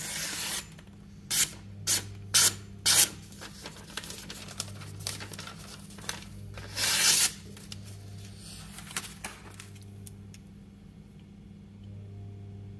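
Newspaper being sliced with a Shun Classic chef's knife: a crisp swishing rip on each cut, five quick strokes in the first three seconds and one longer cut about seven seconds in, then only faint paper handling.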